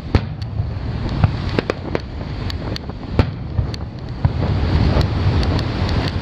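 Fireworks shells bursting overhead: a string of sharp pops and crackles, loudest just after the start and about three seconds in. Under them runs a steady low rumble of wind on the microphone.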